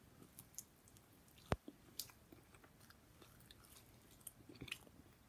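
Faint chewing and biting of a slice of pizza: soft, scattered mouth clicks, with one sharper click about a second and a half in.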